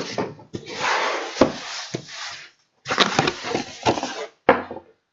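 Cardboard packaging being opened and handled: rustling and scraping with several sharp knocks, breaking off abruptly twice.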